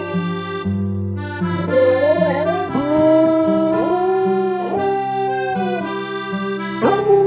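Pembroke Welsh corgi howling along to instrumental music: from about one and a half seconds in, a wavering howl that settles into long held notes, broken a few times, with a fresh howl starting near the end. The music holds steady chords over a bass that steps about every half second.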